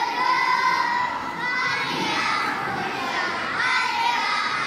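A choir of young schoolchildren, Year 1 pupils of about seven, singing together, with long held and gliding notes.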